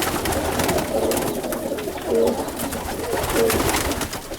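Several roller pigeons cooing, their low coos overlapping throughout, with scattered light clicks among them.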